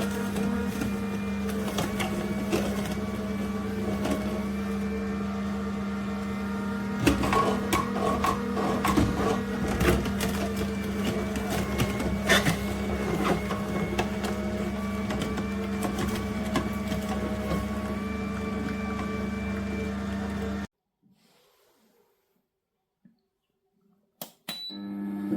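Cold-press slow juicer's electric motor running with a steady hum, with scattered crackling and clicking over it for several seconds in the middle. The hum cuts off suddenly about three-quarters of the way through, leaving near silence broken by a couple of small clicks.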